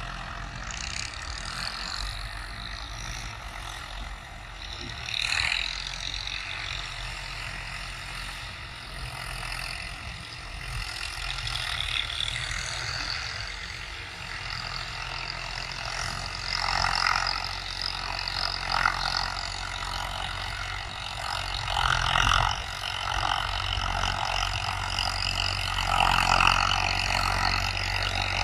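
Al-Ghazi 65 hp tractor's diesel engine running under load while pulling a tillage implement through the soil, a steady hum that swells louder several times.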